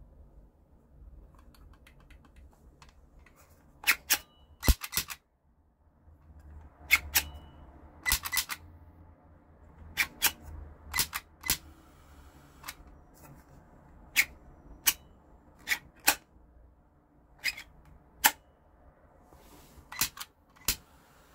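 Glock 18 replica pistol lighter being worked by hand: about twenty sharp clicks from its trigger and moving parts at irregular spacing, several in quick pairs.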